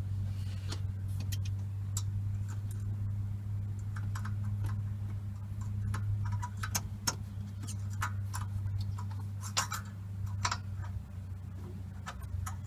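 Engine oil dripping from a generator's open drain into a catch pan: scattered, irregular ticks over a steady low hum.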